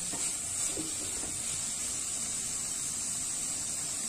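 Chopped vegetables (peas, carrot and capsicum) frying in a little oil in an aluminium kadhai: a steady sizzling hiss, with a few faint ticks in the first second.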